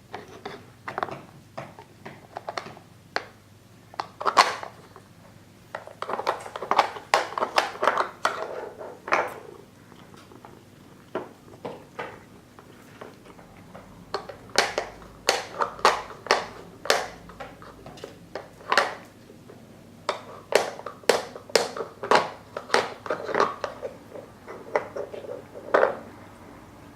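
Hollow plastic bones of a Dog Smart treat puzzle clattering and knocking on the plastic disc as a cat paws and noses at them. The sound is irregular clicks and knocks, coming in busy flurries with short pauses between.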